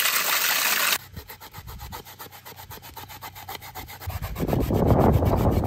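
Tap water pouring into a steel pot, cut off sharply about a second in. Then a daikon radish is grated by hand on a plastic grater bowl in fast, even rasping strokes, louder from about four seconds in.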